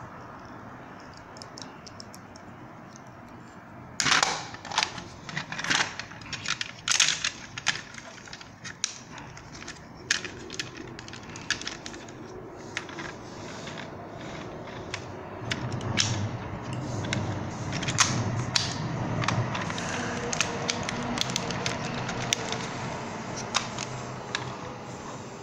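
Hard plastic clicking and rattling from a Bandai ThunderCats Thunder Lynx toy vehicle and its action figure as the figure is fitted into the cockpit. In the second half the clicks come with a steadier low rubbing noise.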